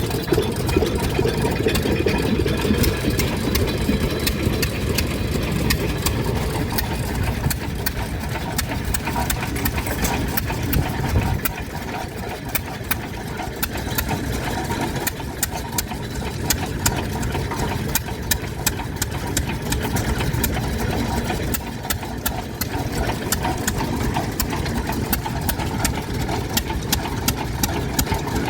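Vintage stationary engine running steadily, with a rapid series of sharp clicks over it in the second half.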